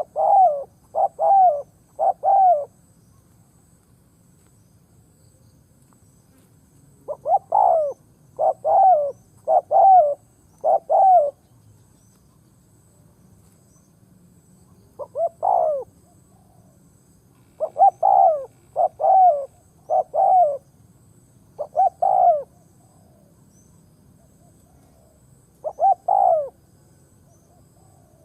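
Decoy spotted dove cooing, the call used to lure wild doves. It gives about six phrases of two to five short coos, each coo falling a little in pitch, with pauses of a few seconds between phrases.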